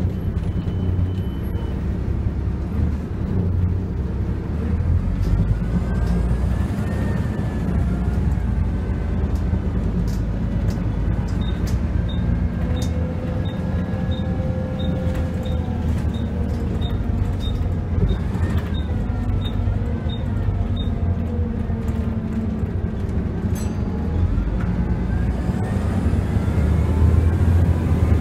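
Volvo B7L bus's diesel engine and drivetrain running under way, heard inside the saloon, the pitch rising and falling as the bus speeds up and slows. Through the middle stretch there is a regular ticking about twice a second.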